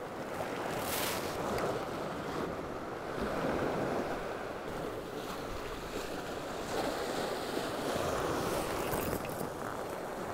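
Sea surf washing against a rocky shore, swelling and easing every few seconds.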